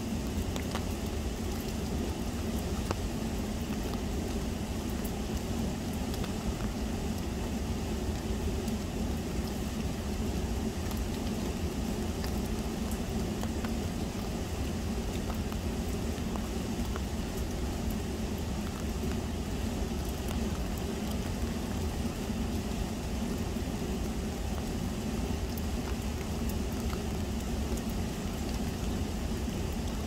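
Fast-flowing river water rushing steadily, with faint scattered ticks of raindrops.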